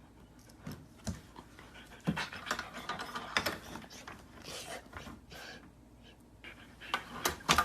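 A dog panting in short, irregular breaths, with a few louder breaths near the end.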